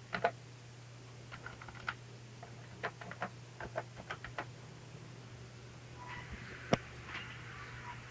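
Irregular light clicks and taps, in short clusters, over a steady low hum, with one sharper click about two-thirds of the way through.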